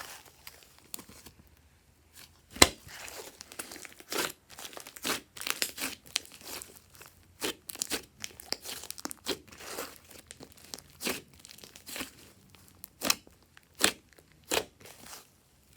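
Glossy slime being worked and pulled apart: irregular sticky crackling and sharp pops, the loudest about two and a half seconds in.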